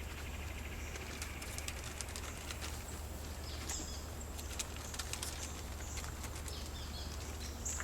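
Quiet background with a steady low hum and scattered faint clicks, and a few short high bird chirps.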